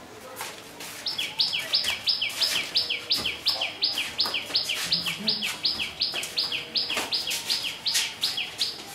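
A bird calling over and over, fast and even: about three two-note chirps a second, each high note sliding down in pitch. It starts about a second in, with a few sharp clicks among the calls.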